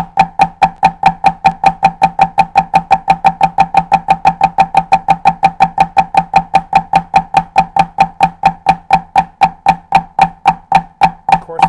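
Drumsticks playing steady, even flams on a drum practice pad, alternating hands, at about six strokes a second. Each stroke is a sharp click with a short pitched knock from the pad.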